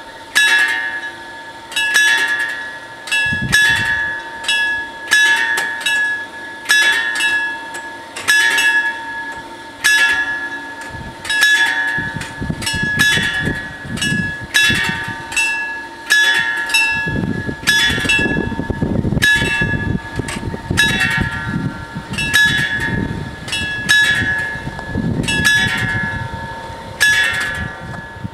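Two electromechanical warning bells of an Italian FS 64 level crossing ringing in a quick, uneven run of clanging strikes, each ringing on. A low rumble comes in about twelve seconds in and grows heavier from about seventeen seconds.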